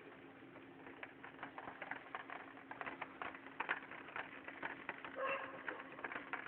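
Irregular faint ticking and pattering, many small clicks at uneven intervals, with a brief bird call about five seconds in.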